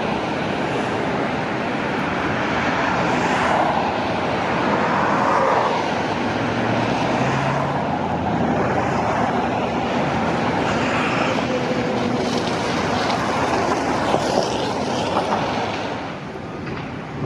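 Steady road traffic noise from passing vehicles, a dense rushing sound.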